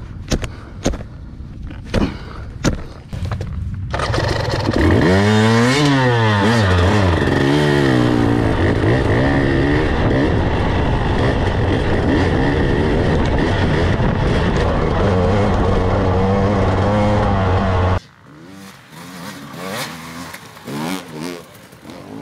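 Dirt bike engine, at first lower with a few knocks, then revving hard from about four seconds in, its pitch climbing and falling through gear changes before holding at high revs. It cuts off abruptly a few seconds before the end, leaving a fainter bike revving.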